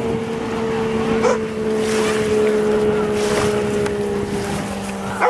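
Outboard motor of a racing riverboat running flat out as the boat speeds past, a steady drone that sinks slightly in pitch, with wind buffeting the microphone.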